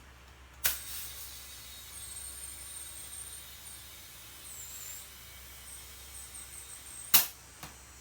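Compressed air hissing steadily into a freshly mounted lawnmower tire through an air chuck for about six seconds, with a faint high whistle over it. The tire is taking air, so the bead has sealed. Sharp clicks come about half a second in and again near the end, the second one louder.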